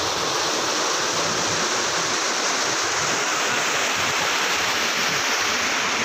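Mountain stream rushing and splashing over boulders in a small white-water cascade: a steady, dense rush of water close by.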